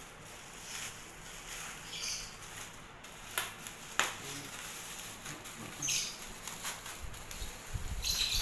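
Hands opening a plastic-wrapped parcel: scattered crinkling and rustling of the packaging, with two sharp clicks or snaps a little over halfway through.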